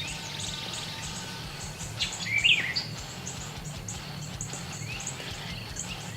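Songbirds calling, with many short high chirps repeating throughout and one louder call that rises and falls about two seconds in.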